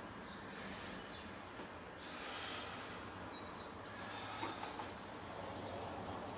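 Steady outdoor background noise, with a person's breath pushed out sharply about two seconds in and a few faint chirps a little later.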